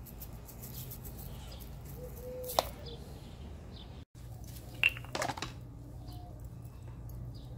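Outdoor background ambience: a steady low hum with a few faint chirps. A short click comes about two and a half seconds in, and a cluster of sharper clicks about five seconds in. The sound cuts out for an instant just after four seconds.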